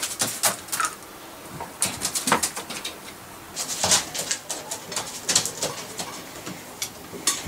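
A dog gnawing a hard dried chew stick, making irregular cracking and crunching clicks.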